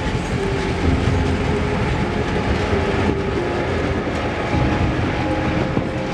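Freight train of open-top wagons rolling past: a steady rumble of steel wheels on the rails, with a few clacks as the wheels cross rail joints.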